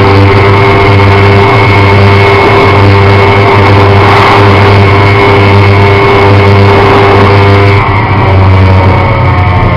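Kawasaki ZX-6R Ninja's inline-four engine running steadily at high revs near top speed, about 250 km/h, under a heavy rush of wind on the onboard microphone. Near the end the sound dulls slightly and drops a little in level.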